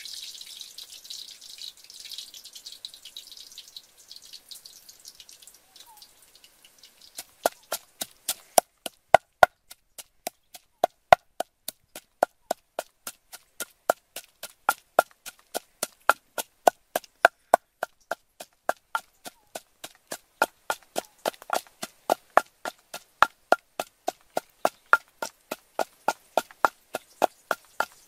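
Wooden pestle pounding in a clay mortar: a steady run of sharp knocks, about two to three a second, each with a brief ring, starting about seven seconds in after a soft hiss.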